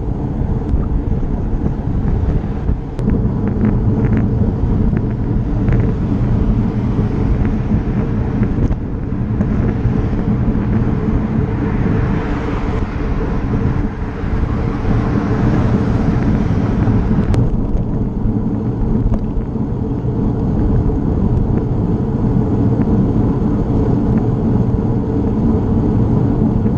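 Wind buffeting the microphone of a camera on a moving road bicycle, with road traffic. A passing car's tyre hiss swells from about ten seconds in and cuts off suddenly about two-thirds of the way through.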